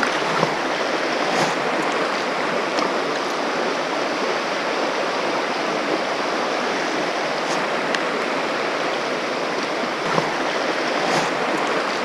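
Steady rush of a shallow, fast-flowing stony river running over riffles close by.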